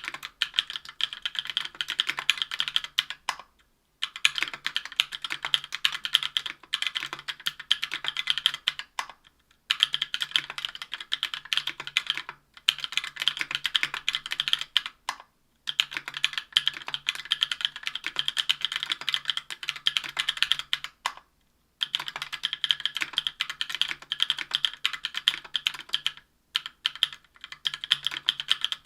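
Typing on a Tofu 60% aluminium keyboard with stock, unlubed Durock Cherry Blossom 65 g linear switches on an aluminium plate, with GMK keycaps. Fast runs of keystrokes are broken by short pauses every few seconds.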